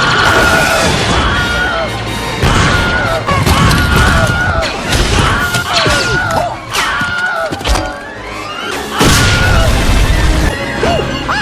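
Film battle soundtrack: orchestral score over repeated crashes, thuds and explosions, with short falling cries of the dubbed-in Wilhelm scream.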